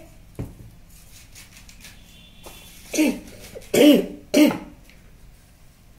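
A person coughing about three times in quick succession, starting about three seconds in, the middle cough the loudest.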